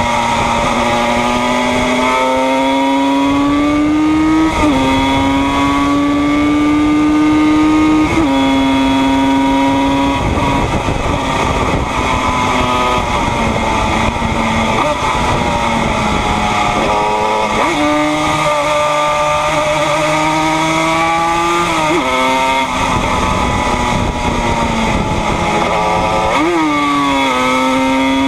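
1976 Yamaha RD 250's air-cooled two-stroke parallel twin at racing speed, held high in the rev range. The pitch climbs slowly and drops sharply at each gear change, about five times, with wind rush over the fairing.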